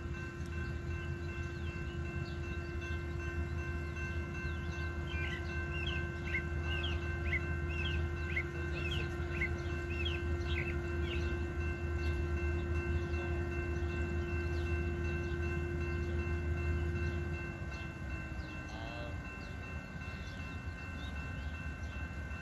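Metra diesel passenger locomotive running with a steady low drone and hum, which winds down and falls in pitch about three-quarters of the way through. Birds chirp briefly in the middle.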